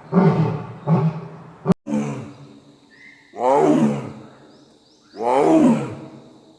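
A big cat roaring again and again, about five long calls, the later ones sliding down in pitch. A sharp click comes a little under two seconds in.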